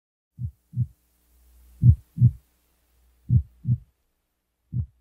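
Slow heartbeat sound effect: low double thumps (lub-dub), a pair about every second and a half, four times, over a faint low hum.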